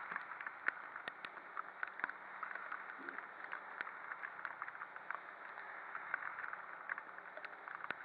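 Raindrops ticking irregularly on a helmet-mounted camera over a steady hiss of rain and tyre spray on a flooded road, heard while riding a scooter.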